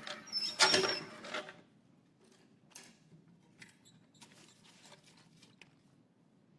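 Wooden lottery drum turned by hand, the paper slips inside tumbling and rattling for about a second and a half. Then faint clicks and paper rustling as the drum is opened and a slip is drawn.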